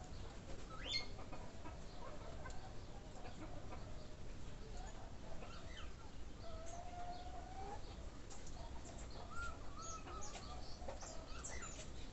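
Birds calling in the background: scattered short chirps and calls, with one longer call about six and a half seconds in that rises slightly at its end, over a low steady rumble.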